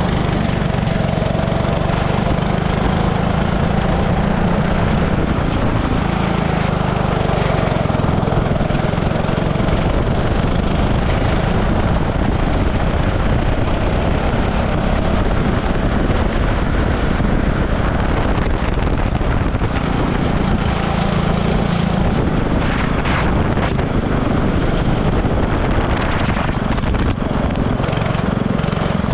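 Super kart engine running loud, its pitch rising and falling with the throttle.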